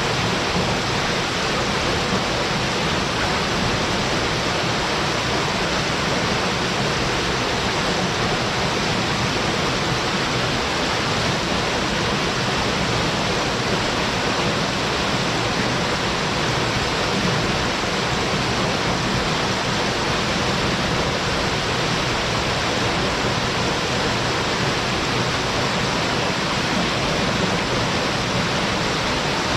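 Waterfall: a short but forceful drop pouring into its plunge pool, making a steady, unbroken rush of falling water.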